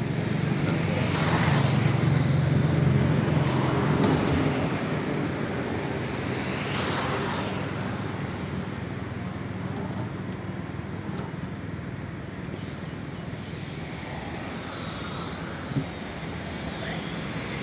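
Steady street traffic noise with passing vehicles, loudest in the first few seconds. A single short knock near the end.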